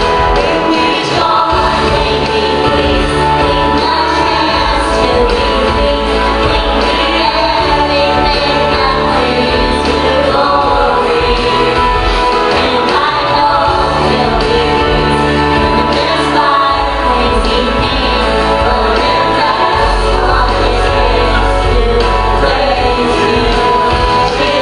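A boy and a woman singing a Christian worship song together into microphones over instrumental accompaniment with sustained bass notes, amplified through a church sound system.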